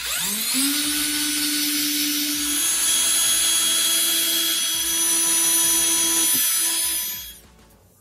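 Cordless drill spinning up with a rising whine, then running steadily as it bores pilot holes for eye hooks into a round wooden board. It winds down and stops near the end.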